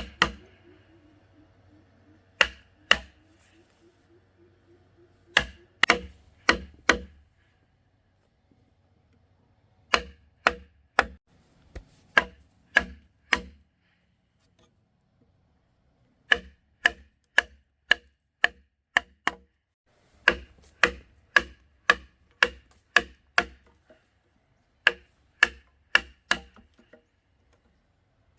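Repeated sharp blows of a hand tool on construction material, in runs of two to eight strikes at about two a second with short pauses between, each strike leaving a brief ringing note.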